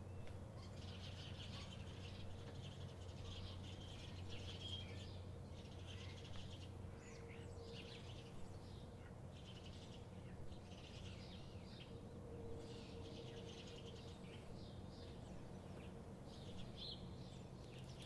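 Small birds chirping and calling over and over in a faint dawn chorus, over a low steady hum.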